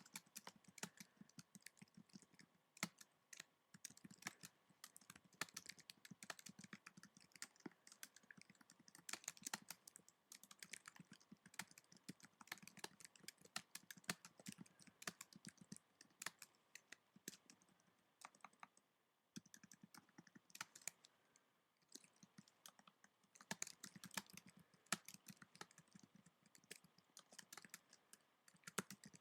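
Typing on a computer keyboard: a rapid, uneven stream of key clicks, with two short pauses about two-thirds of the way through.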